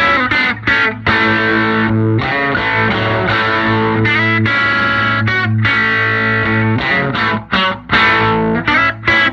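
Electric guitar (a Telecaster on its bridge pickup) strummed through a 1968 Fender Vibrolux tube amp turned up full, the chords breaking up into overdrive. Chords ring out for a second or more, with a run of short, choppy strums in the second half.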